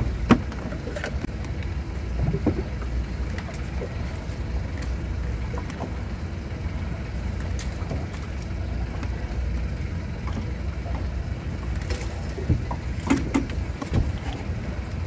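Steady low rumble of wind and water around a small boat drifting on calm sea, with a few short knocks and clicks: one just after the start and several near the end.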